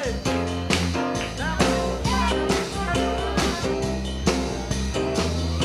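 Rock band playing a loose rehearsal jam, with a drum kit keeping time under a steady bass and lead notes that slide in pitch.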